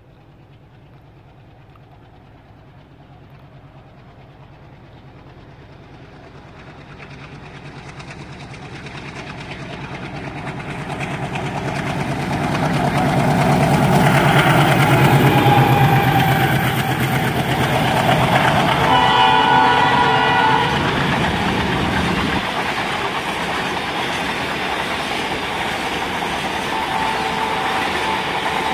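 ALCO WDG3A diesel locomotive's 16-cylinder engine running under load as it approaches with a container freight train, growing steadily louder to a peak about halfway through. Its horn sounds once for about a second and a half a few seconds later, then the container wagons roll past with a steady rumble of wheels on the rails.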